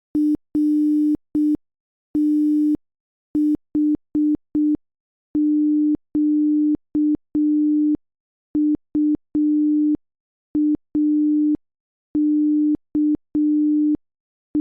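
Morse code sent as a single low electronic tone, keyed on and off in short dots and long dashes at a slow sending speed, with a faint click at the start and end of each element. The first few elements have a buzzier edge than the rest.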